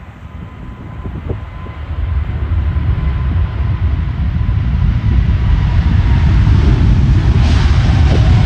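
Boeing 747-8F's four GEnx turbofans at takeoff power: a deep rumble that grows louder over the first few seconds as the jet approaches, with a faint whine slowly falling in pitch.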